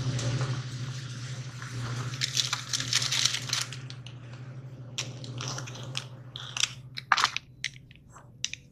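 Plastic packaging of a frozen paratha pack crinkling and crackling as it is taken off a freezer shelf and handled, with a steady low hum underneath. The crinkling is densest in the first few seconds, then thins to scattered crackles and clicks.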